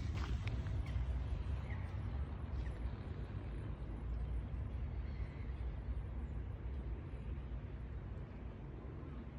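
Outdoor field recording: a steady low rumble with street noise, slowly fading. A few hoof clops from a horse sound in the first second.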